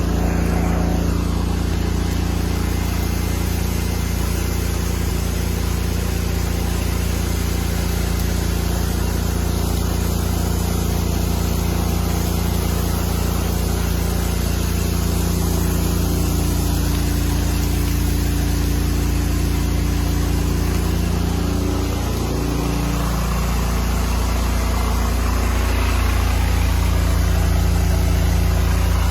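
Engine of pressure-washing equipment running steadily; about three-quarters of the way through, its pitch shifts, with one tone gliding up, before it settles back to a steady run.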